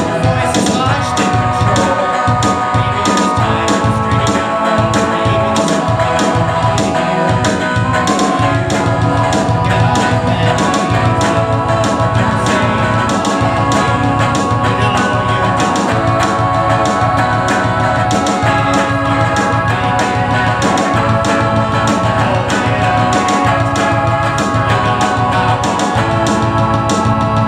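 A live rock song: electric guitar with held organ-like tones over a steady beat.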